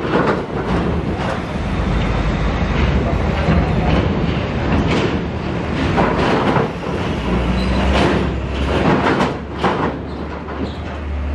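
Loaded diesel trucks driving off a ferry over its steel ramp and steel-grating deck. The engines run under repeated clanking and rattling as the wheels cross the metal plates.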